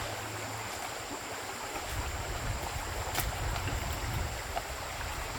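Steady rush of a stream, with a low rumble of wind on the microphone and a faint click about three seconds in.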